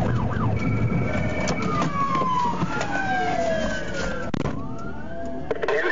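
Police siren wailing: a long tone slides slowly down in pitch, then swings back up near the end, over a low vehicle rumble and scattered clicks.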